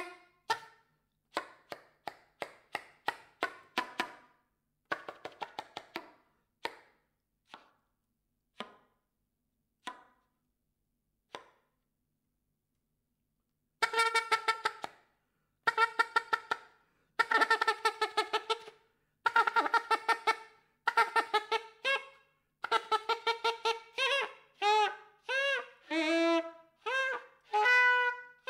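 Soprano saxophone played in free improvisation: sparse short percussive pops for the first ten seconds or so, a brief pause, then from about fourteen seconds clusters of rapid, stuttering tongued notes, with the pitch bending and sliding near the end.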